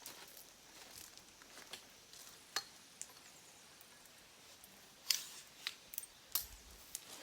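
A few scattered light clicks and taps over a quiet background, most of them in the second half.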